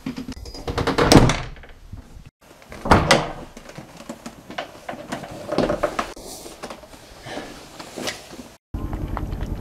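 A door being opened and moved against its frame, giving several knocks and thuds a couple of seconds apart.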